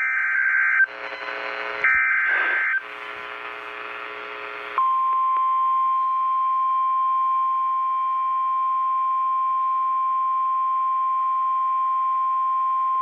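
NOAA Weather Radio Emergency Alert System activation for a severe thunderstorm warning. Two bursts of SAME header data tones, each about a second long, are separated by radio hiss. About five seconds in, the steady 1050 Hz weather radio warning alarm tone begins.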